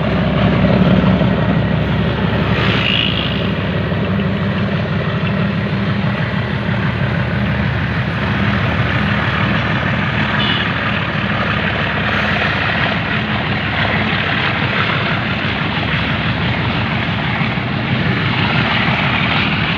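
Moving train: a steady loud rumble with a low engine hum underneath.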